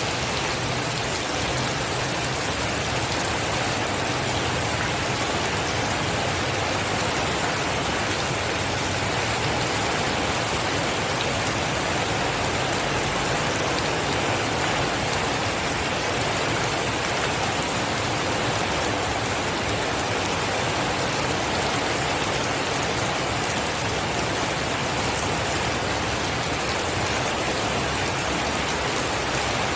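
Steady rain falling, an even hiss of countless drops that holds the same level throughout.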